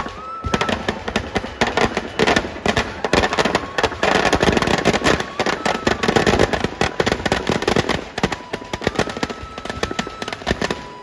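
Firecrackers packed inside a burning Ravana effigy going off in a rapid, continuous crackle of bangs during Ravan Dahan. The bangs are thickest in the middle and thin out near the end.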